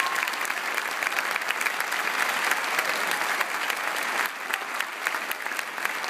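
Audience and performers applauding steadily, a dense patter of many hands clapping that thins a little about four seconds in.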